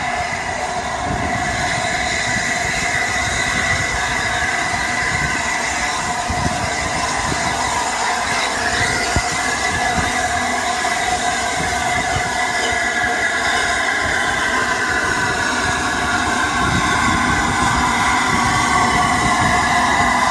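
LNER A3 steam locomotive 60103 Flying Scotsman and its train coming in along the track, a steady high metallic squeal from the wheels over a rumble of running gear, growing louder near the end as it draws close.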